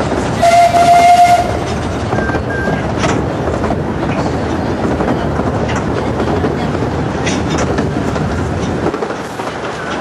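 Ride in an open carriage of a 15-inch gauge miniature steam railway: steady rumble and clatter of the wheels on the track, with a few sharp clicks over rail joints. Near the start the locomotive's whistle gives one short blast of about a second, the loudest sound.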